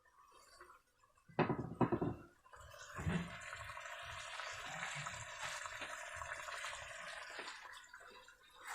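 A couple of clatters from the cooking pot, then about five seconds of steady sizzling as the spiced chicken cooks in oil.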